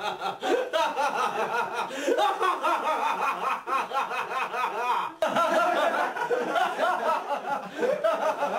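Several people laughing hard together, one voice loudest, with a brief break about five seconds in.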